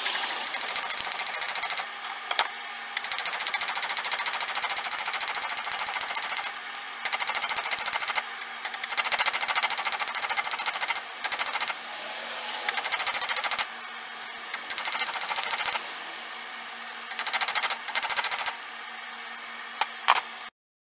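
A small hammer tapping rapidly and lightly on brass pins through a hickory spatula handle laid on a makeshift anvil, in runs of a few seconds with short pauses and one louder strike near the end. This is peening: the taps spread the pin ends to rivet the handle scales tight.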